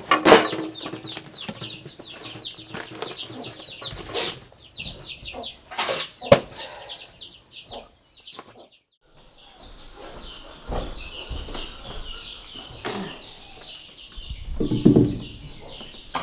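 Poultry in a village yard, mainly a dense run of short, high, falling peeps several times a second, with a few sharp knocks among them. The sound cuts out briefly about eight and a half seconds in, then the peeping picks up again, with a louder, lower call near the end.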